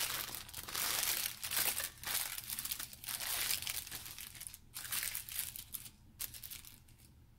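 Paper fast-food taco wrapper crinkling and rustling as it is unwrapped and spread open, with sharp crackles and rustles in quick succession that die down about a second before the end.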